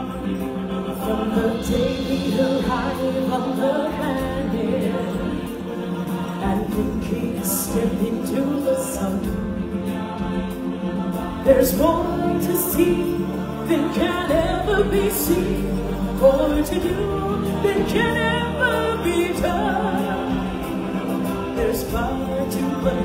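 Stage-show music with a choir singing over it, full and continuous.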